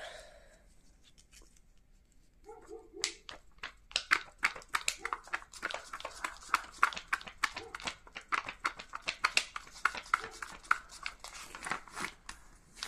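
A paper book page being flapped quickly back and forth by hand, a fast run of sharp papery flaps, several a second, starting about three seconds in.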